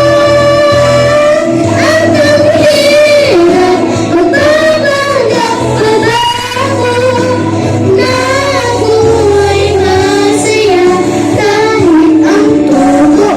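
A voice singing a slow melody with long held notes that glide between pitches, over backing music with a steady bass.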